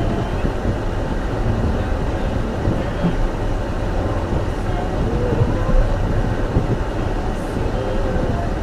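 Steady low rumble of a car driving on a snowy road: tyre and engine noise, with a few faint short squeaks along the way.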